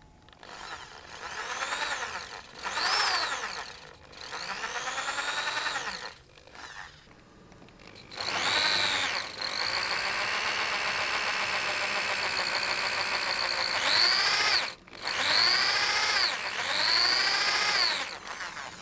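Bosch corded electric drill boring a large bit through a sailboat's fibreglass bow, in several trigger runs. The motor whine climbs as each run starts and falls away as it ends, with one long steady run in the middle and short pauses between runs. These are the holes for the slot of a new bobstay fitting.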